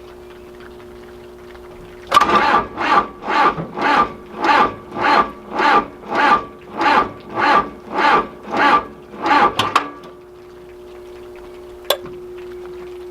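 John Deere 410C backhoe's diesel engine cranking slowly on the starter, about thirteen labored turns over some eight seconds, then stopping without catching: a weak battery with a corroded, smoking terminal connection. A steady hum is there before and after the cranking, and a single click follows it.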